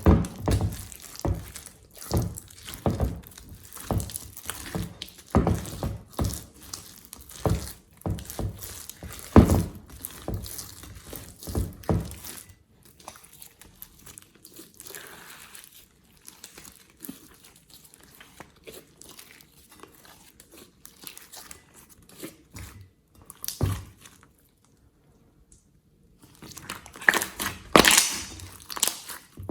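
Slime being handled, giving dense crackling, crinkling pops for about the first twelve seconds, then fainter scattered crackles, a brief silence, and a loud burst of crackles near the end.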